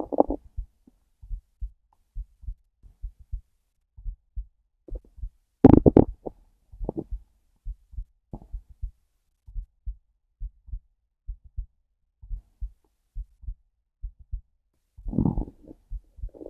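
Heartbeat thumping steadily and low under a hungry stomach that growls loudly about six seconds in, rumbles briefly a little later, and growls again near the end.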